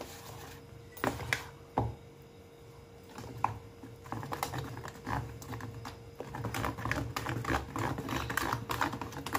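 A steel spoon beating a thick batter of flour, semolina and milk in a steel bowl: the spoon clicks and scrapes against the bowl, in a few separate knocks at first, then in a quick, dense run from about four seconds in.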